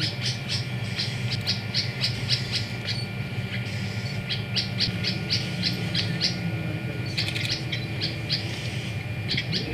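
Birds calling in repeated runs of quick, short chirps, about five a second, with pauses between the runs, over a steady low hum that eases off about seven seconds in.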